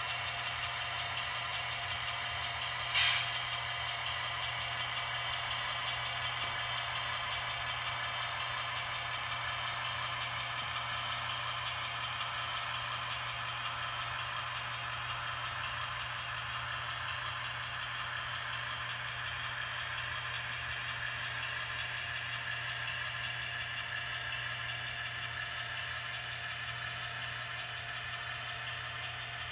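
Zimo digital sound decoder in a Roco H0-scale DSB class MY diesel model locomotive playing a steady diesel engine running sound through the model's small speaker. A brief sharp noise cuts in about three seconds in.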